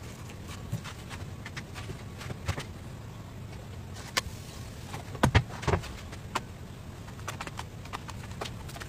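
Light taps and knocks of crepe wrappers and an electric crepe maker being handled on a wooden board, with a louder cluster of knocks a little over five seconds in.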